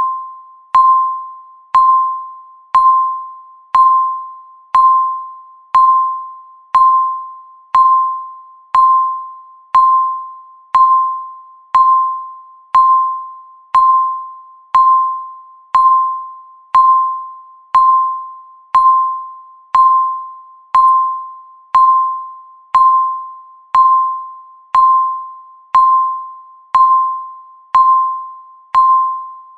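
Countdown timer beeping once a second: each beep a short electronic tone at one steady pitch that starts sharply and fades before the next.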